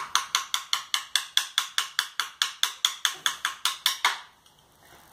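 Wooden baby toy being worked by hand, giving even, rapid wooden clicks at about five a second that stop suddenly about four seconds in.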